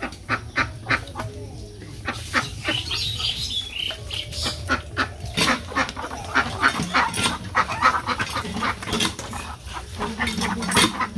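Domestic ducks quacking over and over in short calls.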